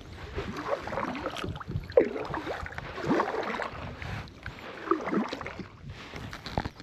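Kayak paddling: the paddle blades dip into the lake and splash, and water drips off them, in several uneven strokes.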